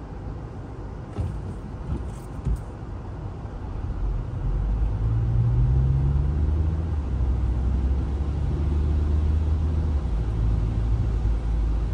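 Car engine and road noise heard from inside the cabin: a low rumble at first with a couple of faint clicks, then about four seconds in it grows louder and the engine note rises as the car pulls away and gathers speed, settling into a steady driving rumble.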